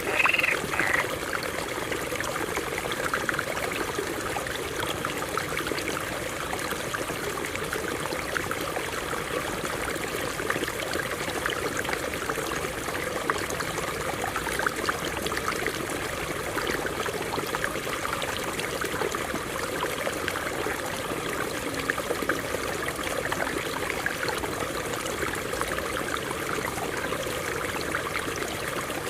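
Stream water running over rocks: a steady rush with fine trickling and splashing.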